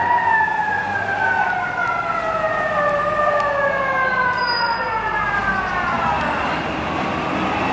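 Police vehicle siren sounding one long wail that winds down slowly in pitch over about six seconds.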